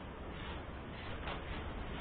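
Steady, even background noise with a low rumble and no distinct events.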